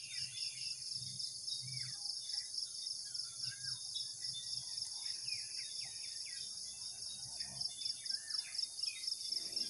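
Steady, high-pitched insect chorus with an even, rapid pulse, while several birds chirp and whistle in short, rising and falling calls throughout.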